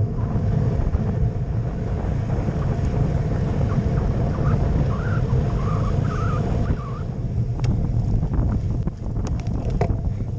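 Wind buffeting the microphone of a camera on a moving road bike, over the rumble of tyres on asphalt. A few sharp clicks and rattles come in the last few seconds.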